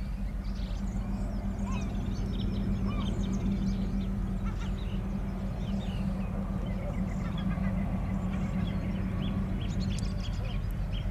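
Distant diesel locomotive running light, a steady low engine drone with a strong hum. Birds call and chirp over it.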